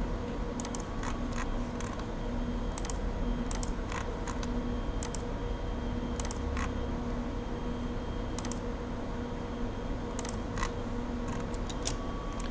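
Irregular, scattered clicks of a computer mouse and keyboard as a SketchUp model is edited, over a steady low background hum.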